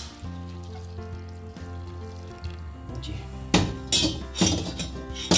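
Background music with hot water pouring into a steel pressure cooker. About three and a half seconds in, a steel ladle starts clinking and scraping against the pot as the rice is stirred.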